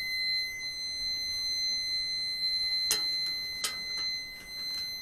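Maverick wireless barbecue thermometer sounding its alarm: a steady high-pitched electronic tone that will not shut off from the unit's buttons. Two short clicks about three seconds in.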